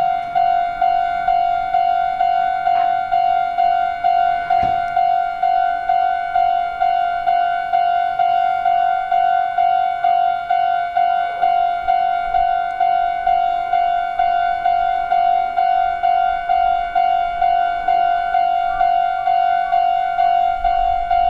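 Japanese railway level-crossing warning bell ringing the "kan-kan" alarm: one steady ringing pitch repeated evenly about twice a second, signalling that a train is approaching and the barriers are down.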